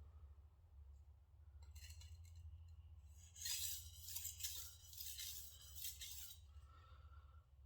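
Shigeki Tanaka 180 mm gyuto blade scraping across a sharpening stone: a short stroke about two seconds in, then a run of quick strokes for about three seconds. A steady low hum runs underneath.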